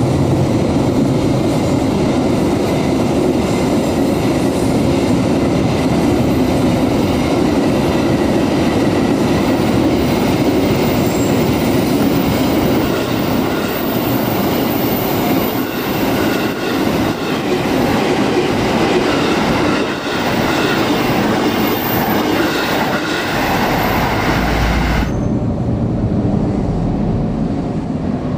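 Container freight train wagons rolling past close by: a steady loud rumble of wheels on rail with clickety-clack over the joints. The sound turns abruptly duller about three seconds before the end.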